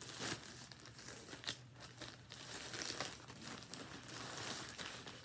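Plastic packaging bags crinkling and rustling in irregular bursts as they are handled and pulled open.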